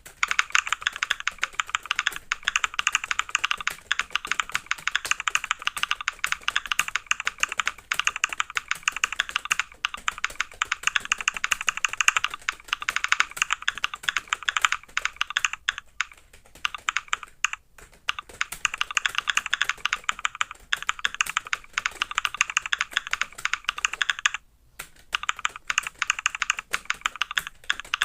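Fast, continuous typing on a computer keyboard: a dense stream of key clicks, with a few short pauses partway through and about three quarters of the way in.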